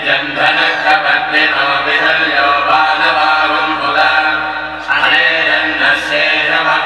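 Hindu devotional chanting of a Shiva hymn: voices intoning a mantra steadily, with a brief break just before the five-second mark.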